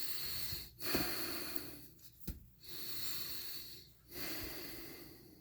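A person breathing heavily and loudly right at the microphone: four long, noisy breaths of about a second each. A short knock comes a little past two seconds in.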